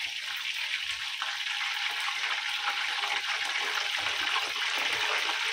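Masala-coated Indian mackerel (bangda) shallow-frying in a pan of hot oil, sizzling steadily.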